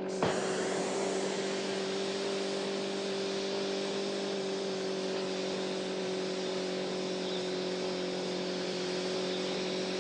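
Volkswagen Beetle's engine droning at a steady speed, with a loud steady hiss that comes in suddenly just after the start.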